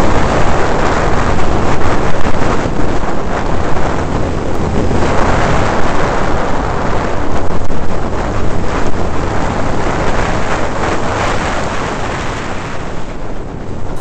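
Yamaha YFZ quad's engine heard from an onboard camera at speed, heavily buffeted by wind on the microphone, the sound swelling and fading every few seconds.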